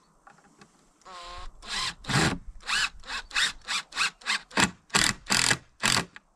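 Cordless drill spinning up with a brief whine, then run in a dozen or so short trigger bursts, about three a second, against the wooden carving.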